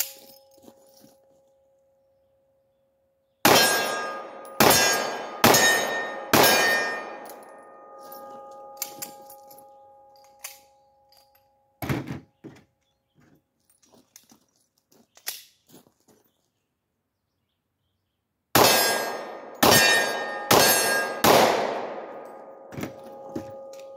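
Two strings of four pistol shots fired in quick succession, roughly a second apart, each shot ringing out after it. The strings are about twelve seconds apart, with a single sharp knock between them.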